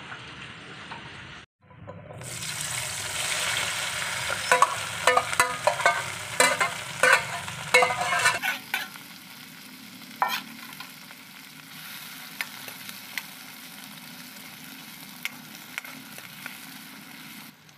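Chopped onions and tomatoes frying in hot oil in a kadhai, with a metal ladle clicking and scraping against the pan. The sizzle is loudest at first, with a quick run of ladle strikes, then settles about halfway through to a quieter, steady frying with a few single clicks.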